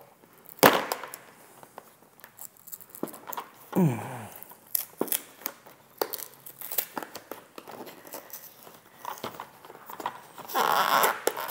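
A tightly glued packaging box being torn and crumpled open by hand: scattered sharp rips and crackles, with a longer, louder tear near the end as the box gives way.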